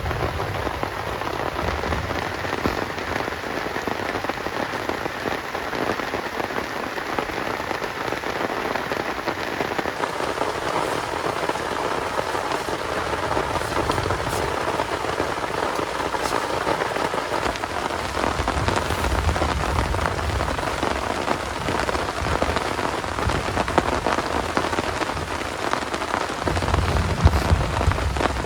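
Heavy rain falling steadily, a dense even patter on a surface, with a low rumble swelling in near the end.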